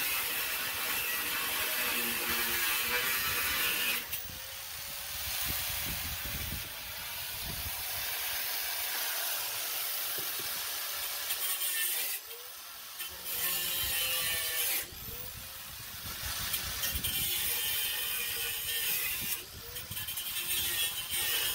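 Corded Hyper Tough angle grinder with a cutoff wheel cutting through the old riveted grass-chute bracket on a rusty steel mower deck: a harsh, high grinding hiss over the motor's whine. It breaks off and picks up again several times.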